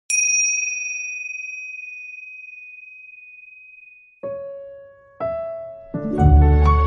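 Soft instrumental music. A single high ringing note sounds and fades slowly over about four seconds, then piano notes come in one at a time, and a deep bass and fuller chords join near the end.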